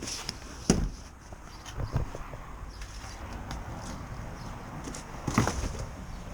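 A few knocks and thumps from handling, the sharpest about a second in and another pair of blows near the end, with faint handling noise between.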